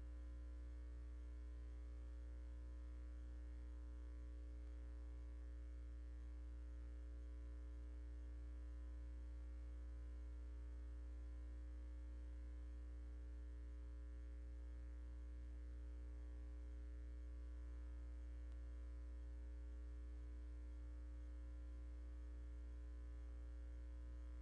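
Steady low electrical hum with a stack of even overtones, unchanging throughout: mains hum on an otherwise silent soundtrack.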